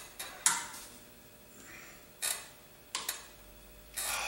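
Several sharp metal clicks and clinks of tools and parts being handled at the crankshaft seal housing of a Quincy 325 compressor pump during teardown, the loudest about half a second in, with a short scraping rustle near the end.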